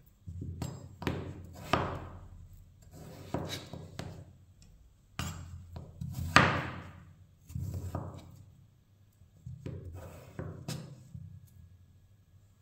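Chef's knife cutting peeled potatoes into chunks on a wooden cutting board: about six separate cuts, each slicing through the potato and knocking on the board, the loudest about six seconds in.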